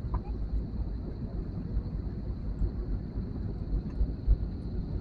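Cabin noise inside an Airbus A320-family jet airliner on final approach to landing: a steady low rumble of engines and airflow, with a couple of low thumps about four seconds in.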